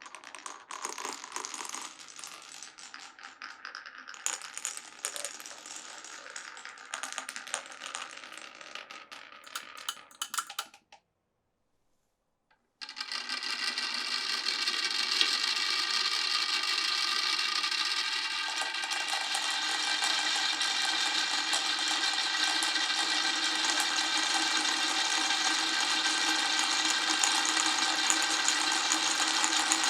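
Marbles clicking and rattling along a wooden marble-run track for about ten seconds, then a short break of silence. About thirteen seconds in, a steady, louder whirring buzz starts, like a small electric motor running, and carries on.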